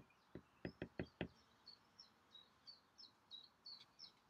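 Faint taps of a stylus on a tablet screen during handwriting: a quick run of about six taps in the first second and a half. Faint high bird chirps follow behind it.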